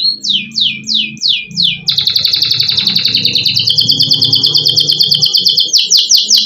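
Domestic canary singing loudly: a few quick downward-sweeping notes, about four a second, then from about two seconds in a long, very fast rolling trill, then more downward sweeps near the end.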